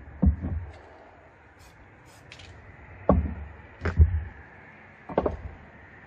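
Dull knocks of spray-paint gear set down on a wooden painting table: a spray can and the round mask lifted off the painted planet. About six knocks come in three clusters, near the start, around three to four seconds in, and about five seconds in.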